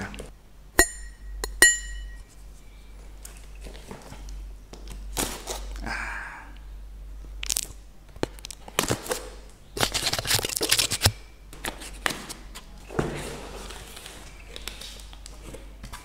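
Cardboard shipping box being pried and torn open by hand and with a tool. There are two sharp ringing clicks about a second in, then repeated bursts of tearing and scraping cardboard.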